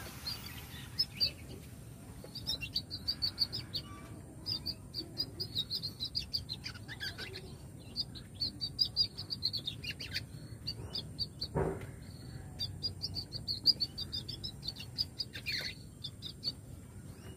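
Young male canary, about one and a half to two months old, twittering its practice subsong (ngeriwik): runs of quick, high chirps lasting one to two seconds each, with short pauses between. The song is long and rhythmic, which is typical of a young male.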